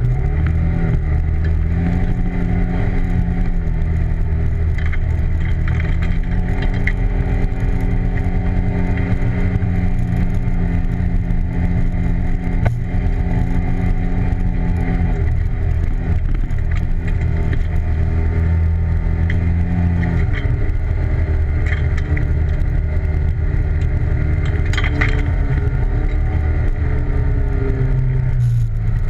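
ATV engine running under way. It holds a steady note, eases lower about halfway through and again a few seconds later, then picks up again near the end.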